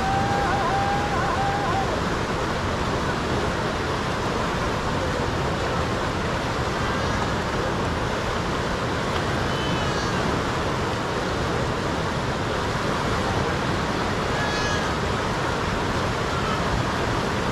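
Steady rushing of a fast-flowing river, even throughout, with faint voices calling over it now and then.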